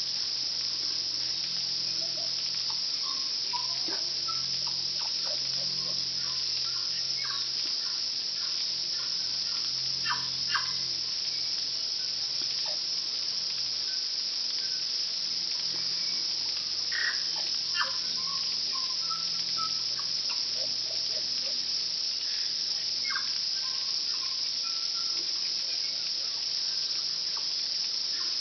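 A steady, high-pitched insect drone fills the background. Over it a tui sings in short, scattered whistled notes and clicks.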